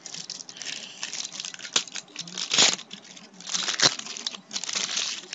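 Crinkly trading-card pack wrapper being handled, in several bursts of rustling with a sharp click about two seconds in.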